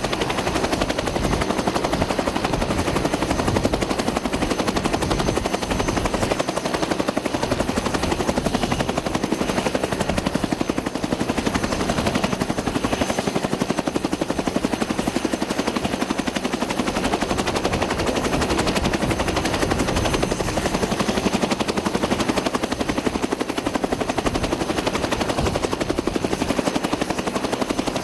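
Aircraft running close by: a loud, steady, rapid chopping beat.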